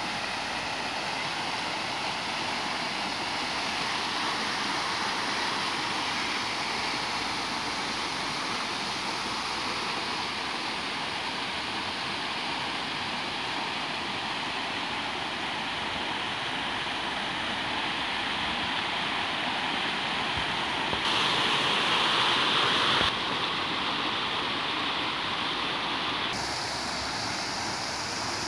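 Many fountain jets splashing into a shallow ornamental pool: a steady rush of falling water, louder and brighter for about two seconds near the end.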